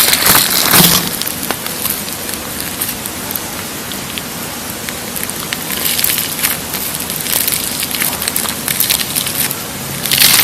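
Slime being squeezed and kneaded by hand: a dense crackling with many small clicks and pops, louder in the first second and again near the end.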